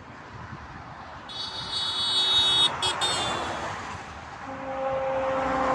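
Highway traffic passing, with a high-pitched whine for about two seconds. About four and a half seconds in, a passing vehicle's horn starts blowing, its pitch falling slightly as it goes by.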